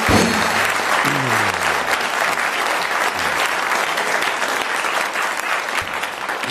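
Studio audience applauding steadily, with music playing underneath that has a few descending notes about a second in.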